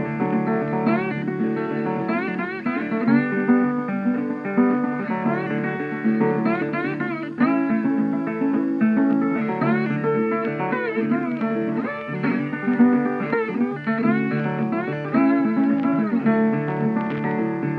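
Background music: guitar-led instrumental with bending, sliding notes over a steady strummed rhythm.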